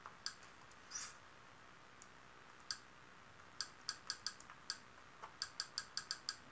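Faint, sharp clicks, one for each step through an on-screen menu: a few single clicks at first, then a quick run of about three to four a second in the second half.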